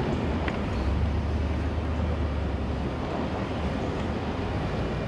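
Ford F-250 pickup rolling slowly, heard from its open, roofless cab: a low, steady engine hum under an even hiss, the hum strongest through the first half.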